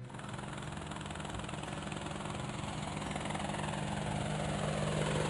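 Helicopter sound effect: a steady engine and rotor noise with a low hum, growing louder as the helicopter approaches.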